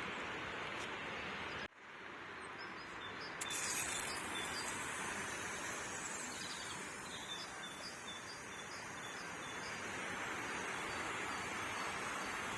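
Small birds chirping in short repeated notes over a steady outdoor background hiss. The hiss drops out briefly just under two seconds in.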